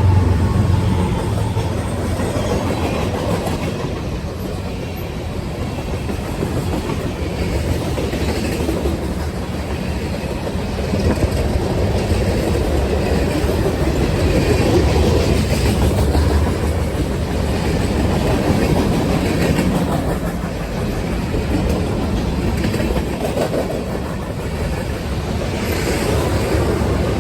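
A train running past, a steady rumble with wheels clattering over the rail joints, swelling and easing in loudness.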